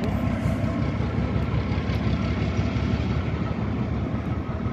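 Diesel shunting locomotive's engine running with a steady low rumble as the shunter moves slowly across the yard.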